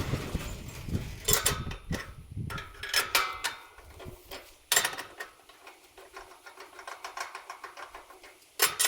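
A series of sharp mechanical clicks and knocks, then a fast run of light ticking, about eight ticks a second, ending in a couple of loud clicks.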